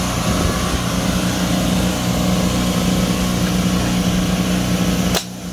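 Air compressor motor running with a steady, loud hum. About five seconds in the hum briefly cuts out between two sharp clicks.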